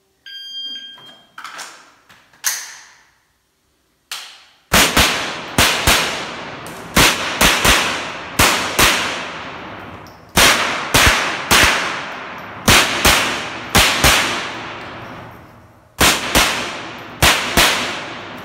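An electronic shot-timer beep and a couple of knocks as the rifle is picked up, then a semi-automatic .22 rimfire rifle firing quick strings of shots, a couple of dozen or more, each trailing off in room echo, with short pauses between strings.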